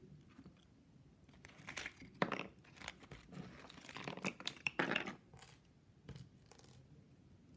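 Fabric rustling as a folded hem is handled and pinned by hand, in soft irregular crinkles with a few sharper ticks in the middle.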